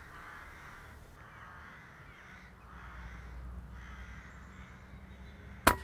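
Crows cawing several times, faintly, then near the end a single sharp crack of a shot from an FAC-rated .22 Daystate Red Wolf PCP air rifle.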